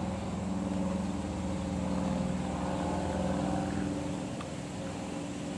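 An engine running steadily with an even hum, its pitch holding with slight swells.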